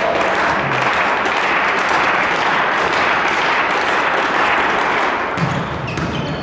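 Crowd applauding: dense, steady clapping that eases a little near the end.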